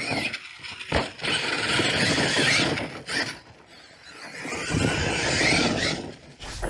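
Electric RC monster truck driving hard on dirt: a high motor whine with tyre and drivetrain noise in two runs, quieter briefly in between, and a thump about a second in.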